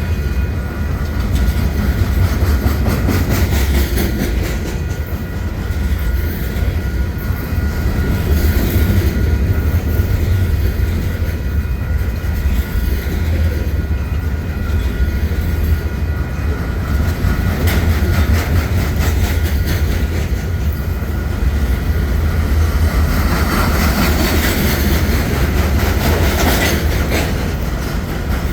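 Freight train cars rolling past, the wheels clicking over the rail joints over a steady heavy rumble, with a thin steady whine above it.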